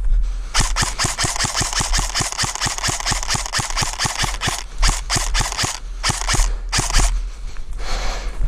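Airsoft electric gun (AEG) firing on full auto: one long burst of rapid, evenly spaced shots lasting about four seconds, then three short bursts.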